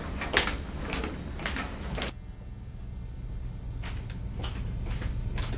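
Footsteps on a hard floor, about two a second, pausing briefly midway, over a steady low room hum.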